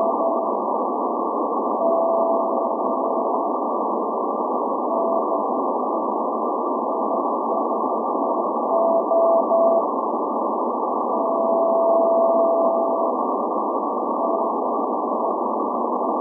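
Morse code from SVO, the Greek maritime coast station's channel marker on 8424 kHz, heard through a shortwave receiver in CW mode as a single beep tone keyed on and off in dots and dashes, sending its call sign SVO. The tone sits over a steady hiss of shortwave static, with one longer tone of about two seconds near the middle.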